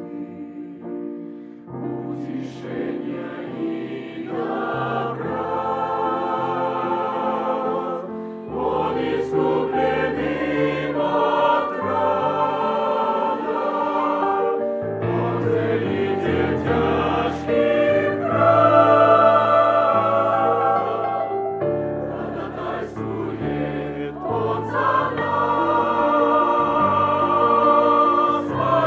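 Choir singing a hymn in several parts, with sustained chords and vibrato over a low bass line, in long phrases that break briefly every few seconds.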